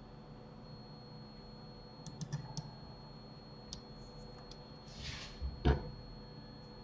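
Computer keyboard keys and mouse buttons clicking: a quick run of four clicks about two seconds in, a few single clicks after, a short hiss, and a louder knock near the end, over a faint steady hum.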